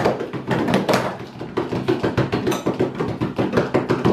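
Hands drumming fast on a wooden tabletop as a drumroll: an even patter of thumps, about seven a second, that dips a little about a second in.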